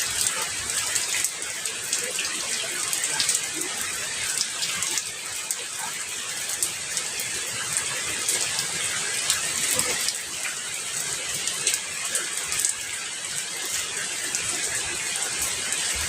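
Steady rain, an even hiss with many sharp individual drop ticks.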